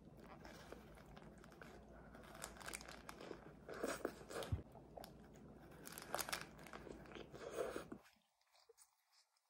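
Close-up biting and chewing of a burger with lettuce and onion, crisp crunches, and the paper wrapper crinkling in the hands. The sound cuts out almost completely near the end.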